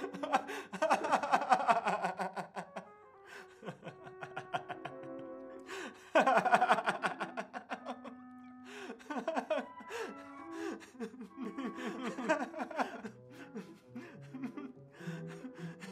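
A man laughing in three bouts, over background music that fills the gaps between them with a few held notes.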